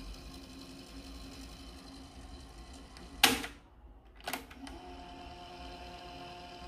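Technics M44 cassette deck's tape transport running with a steady whir, then a loud clunk of its piano-key transport buttons about three seconds in and the mechanism falls quiet. About a second later a second clunk, and the transport runs again with a steady whir at a different pitch.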